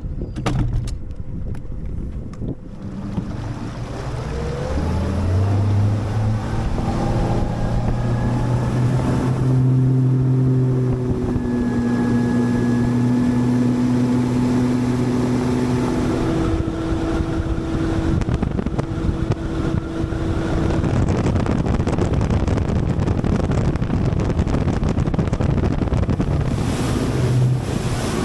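Four-stroke outboard motor on a Nitro Z21 bass boat speeding up, its pitch rising over the first several seconds, then running steadily at speed with wind rushing over the microphone.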